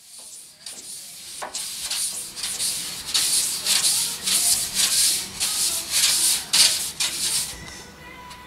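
Rubbing strokes against the inside of a reflecting-telescope tube, about two a second, a scratchy hiss that grows louder through the middle and eases off near the end.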